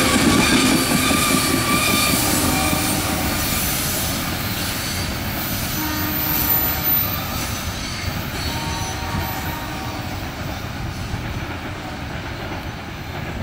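Coal gondola cars of a freight train rolling on the rails, with a thin wheel squeal that fades about two seconds in. The rumble then dies away slowly as the end of the train recedes.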